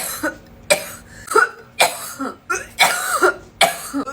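A person coughing hard in a fit of about eight coughs, roughly two a second, some of them rough and voiced: the coughing that follows a long vape hit, a 'blinker'.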